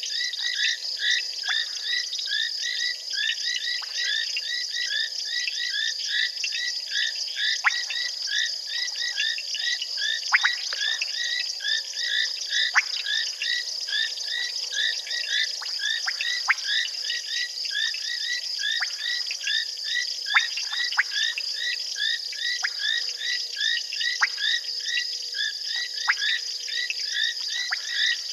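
A dense night chorus of frogs: many short calls repeated rapidly and overlapping at several pitches, with now and then a louder single note, over a steady high drone.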